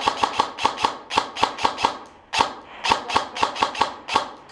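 Airsoft gun firing rapid single shots, about five or six a second, in two long strings with a short pause about two seconds in and a couple of last shots near the end.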